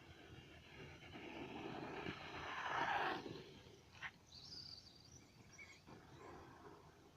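RC truck driving past: a swelling rush of motor and tyre noise that peaks about three seconds in and drops away, followed by a single sharp click.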